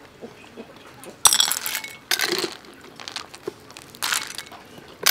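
Ladlefuls of cooked river snails clattering into a ceramic bowl, the shells clinking against each other, the metal ladle and the bowl in a few short bursts, the sharpest about a second in.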